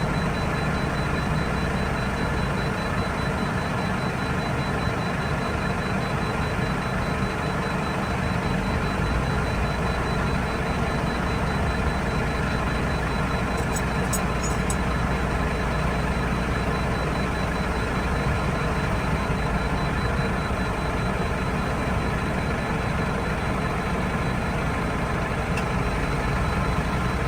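Tractor engine running steadily, with a thin, evenly repeated high beep running alongside it.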